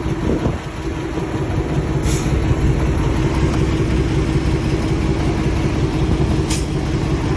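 Heavy diesel engine running steadily with a deep rumble, with two brief ticks, one about two seconds in and one near the end.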